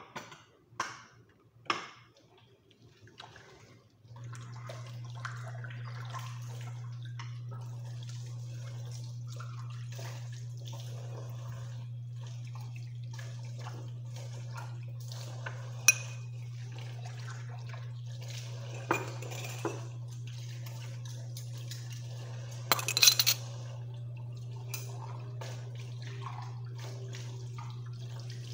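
Dishes being washed at a kitchen sink: clinks and knocks of dishes and cutlery, with the tap running steadily from about four seconds in and a low hum under it.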